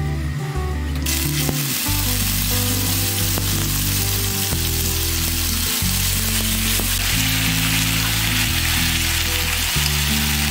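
Wet spice paste sizzling as it hits hot oil with cumin seeds, dried red chillies and bay leaves. The sizzle starts suddenly about a second in and keeps frying steadily, over background music.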